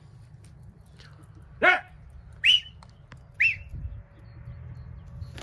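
A pigeon keeper calling to his flying birds: a short rising shout, then two sharp whistles about a second apart, each rising and falling in pitch.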